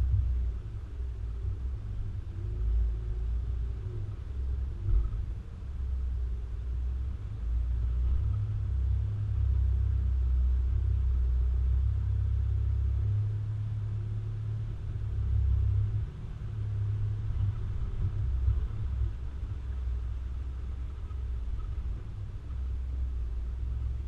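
A 4WD vehicle driving along a track, heard as a low, uneven rumble that swells and dips throughout.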